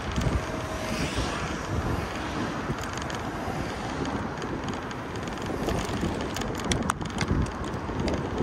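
Wind buffeting the microphone with uneven low rumbling gusts, over steady outdoor traffic noise. A few sharp ticks come about seven seconds in.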